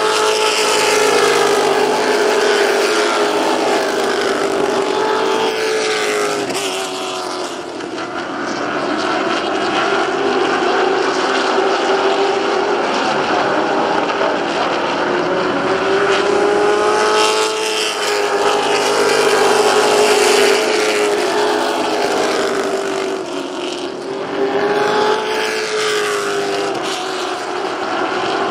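A field of short-track stock cars racing around a paved oval under full throttle, many engines running together. The engine note swells and drops in pitch and loudness as the pack goes by and laps.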